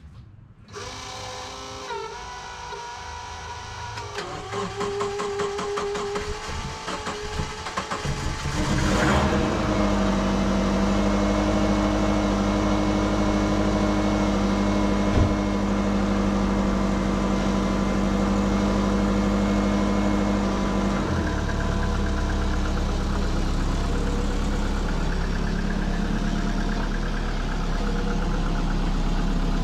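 Turbocharged Subaru Forester flat-four engine cranking for several seconds, then catching about nine seconds in on its first start after sitting for a long time. It runs at a fast, steady idle and settles to a lower idle about twenty seconds in.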